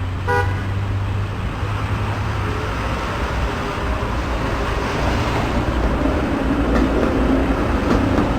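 Steady low rumble of motor-vehicle noise, with a brief high toot about a third of a second in.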